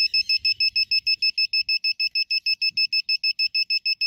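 Piezo buzzer on a Sherlo gate-remote receiver card beeping rapidly, about seven high beeps a second, while its program button is held down to erase the memory. Right at the end the beeping turns into a constant buzz, the sign that the receiver's memory has been cleared.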